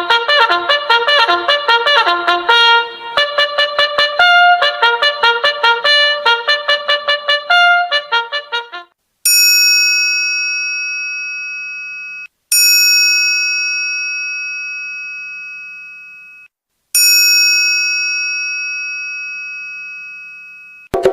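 A trumpet playing a quick melody of short notes, then a triangle struck three times, each strike ringing out and slowly fading.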